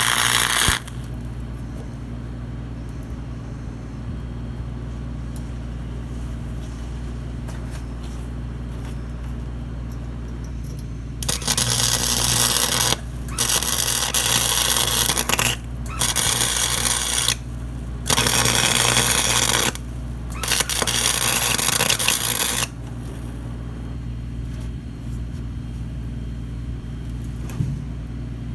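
Five tack welds on a thin steel lawnmower deck patch, the welding arc crackling in bursts of about one and a half to two seconds each with short gaps between, over a steady low hum. A loud burst of noise stops just under a second in.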